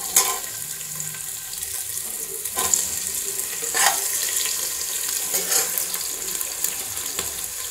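Sliced onions sizzling in hot oil in a pressure-cooker pot, the hiss starting suddenly as they go in and running on evenly. A few short clinks of the steel ladle against the pot as they are stirred.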